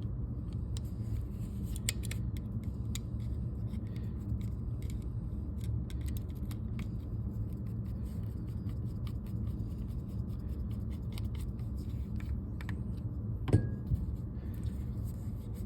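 Small scattered metal clicks and light scraping as an Allen key turns the frame-to-body screw of a Shocker AMP paintball marker, with one sharper click near the end, over a steady low hum.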